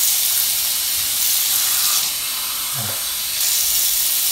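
Bathroom sink faucet running in a steady stream, an even hiss of water.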